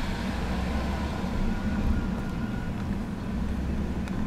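Steady low drone of a running vehicle, with no marked change in pitch or level.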